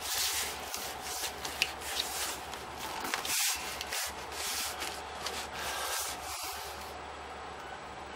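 Cardboard rubbing and scraping as the flaps of a shipping box are pulled open and a cardboard display box is slid out of it: a run of scrapes that eases off near the end.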